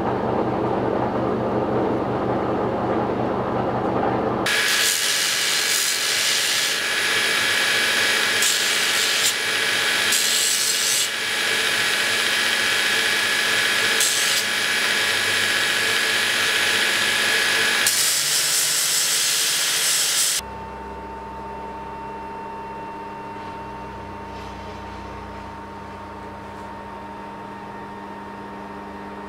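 HBM belt grinder grinding a steel piece, a loud hissing rasp over the machine's steady whine, throwing sparks. It stops suddenly about two-thirds of the way through, leaving a quieter steady machine hum, after a shorter stretch of a different machine running at the start.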